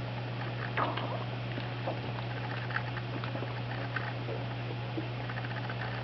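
German shepherd's bowels gurgling and squeaking in short, irregular bursts over a steady low hum. These are the loud gut sounds of a dog with small intestinal bacterial overgrowth and/or exocrine pancreatic insufficiency; the owner is unsure which condition causes them.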